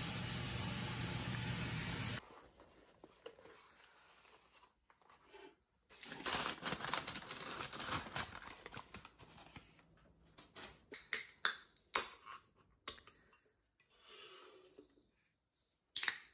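A steady rushing hiss cuts off suddenly about two seconds in. Then comes quiet rustling and crinkling of a paper bag and foil as a takeout fried-chicken box is unpacked, with a few sharp clicks and taps, and two sharp knocks near the end as cans are handled on the table.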